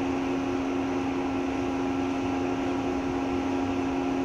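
Steady machinery hum aboard a container ship: a constant low drone with two steady tones over an even hiss.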